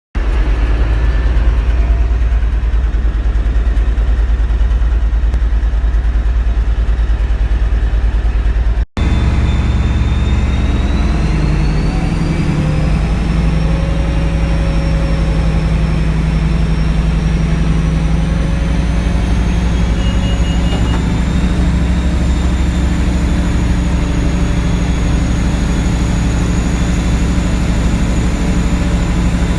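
Diesel engine of HST prototype power car 41001 running steadily with a heavy low drone. There is a brief break about nine seconds in, after which a high-pitched whine rises and then holds over the engine.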